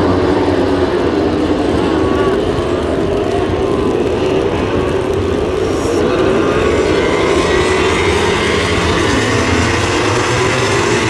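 Vehicle engines running on a race circuit, several pitches sliding up and down at once, over a steady low rumble.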